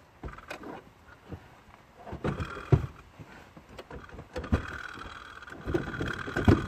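Irregular knocks and clunks of a car seat being manoeuvred into place and bolted down, with a steady whine-like tone in the second half.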